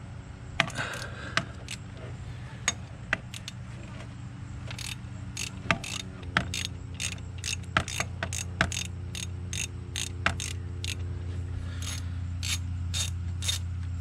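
Hand tools clicking on metal while the shifter linkage is taken apart: a string of sharp clicks, irregular at first and then coming about three a second, like a socket ratchet being worked. A steady low hum gets louder about six seconds in.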